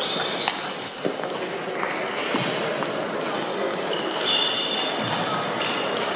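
Table tennis ball clicking sharply a few times off bat and table in the first second, over the steady din of a large hall where other matches are being played. Short high squeaks of shoes on the sports floor follow, the longest about four seconds in.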